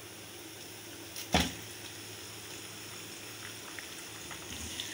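Sliced onions frying in hot oil in a wok, a steady sizzle, with one sharp knock about a second in. A few small clicks and a slightly louder sizzle near the end as raw chicken goes into the pan.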